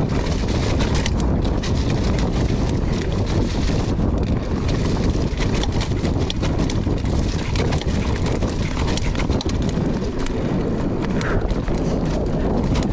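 Wind buffeting the microphone of a mountain bike descending a rocky trail, with the bike rattling and knocking over rocks and roots in quick, irregular clicks.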